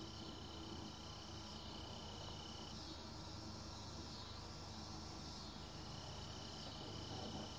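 Faint, steady high-pitched trill of an insect, which breaks off a little under three seconds in and starts again about three seconds later.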